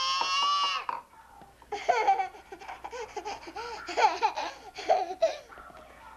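A toddler's high-pitched squeal lasting about a second, then after a short pause a run of short laughs and babbling.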